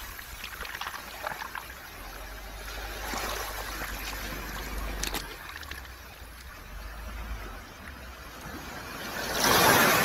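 Sea waves washing over a round-pebble (mongdol) beach, the water hissing and the pebbles clicking as it runs back; a wave surges in louder near the end.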